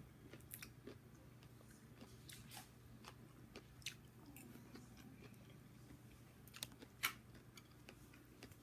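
A person chewing chicken and broccoli close to the microphone: faint, scattered mouth clicks, the sharpest about seven seconds in, over a faint low steady hum.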